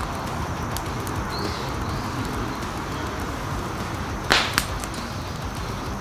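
Split firewood burning and crackling, with small snaps over a steady rush and one sharp, loud pop about four seconds in, followed closely by a smaller one.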